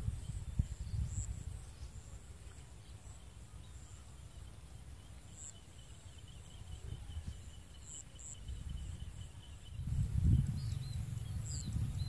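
Open-air rural ambience: a low, uneven wind rumble on the microphone, stronger about ten seconds in, with a faint rapid insect trill in the middle and a few short bird chirps near the end.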